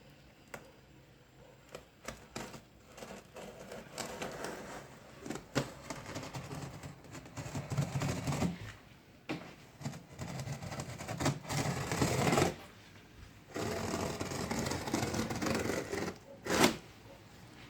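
Packaging being handled during unboxing: irregular rustling and scraping of cardboard and wrapping, with scattered clicks, and one sharp knock near the end.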